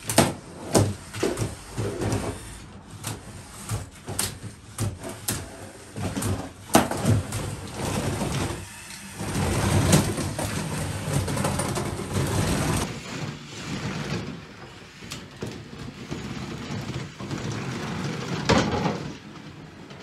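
Lego combat robots fighting on a plywood arena floor: repeated plastic knocks and clatters as they ram each other, with a longer stretch of grinding and scraping from about nine to thirteen seconds in while they shove together, and another sharp hit near the end.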